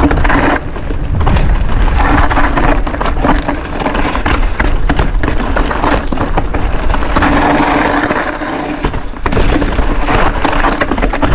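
Mountain bike descending a rough dirt trail: tyres rumbling and knocking over the ground, the bike rattling, wind buffeting the camera microphone, with stretches of a steady buzz.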